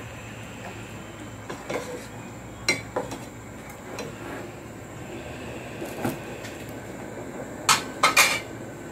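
A ladle stirring a stew in a stainless steel saucepan, knocking and clinking against the pot's side now and then, with a cluster of louder clinks near the end over a steady low background hum.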